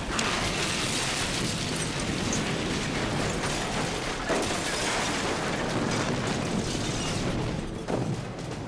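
A building blowing up in a gasoline explosion: a sustained blast and fire noise with debris crashing down. There are fresh sudden bangs about four seconds in and again near the end.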